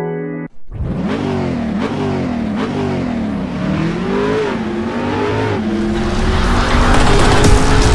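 Car engine revving, its note rising and falling several times, then holding steady and growing louder near the end. A moment of music cuts off abruptly about half a second in.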